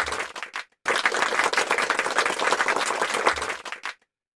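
Crowd applause with dense clapping. It cuts off abruptly under a second in, starts again a moment later, then fades out shortly before the end.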